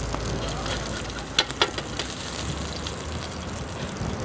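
Thin lemon sole fillets sizzling on a hot griddle pan, a steady hiss, with two sharp clicks close together about a second and a half in.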